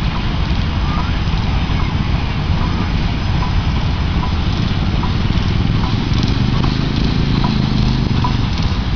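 1908 Peerless Model S steam traction engine running at slow idle, with a steady hiss of escaping steam over a low rumble.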